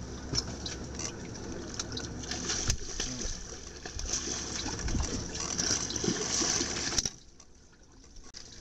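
Water splashing and trickling, with scattered small knocks; it cuts off suddenly about seven seconds in.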